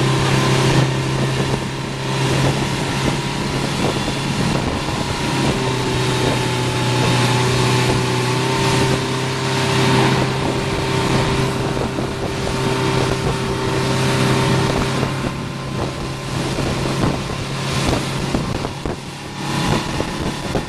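Motorboat engine running steadily at speed while towing a tube, with wind buffeting the microphone and the rush of the churning wake.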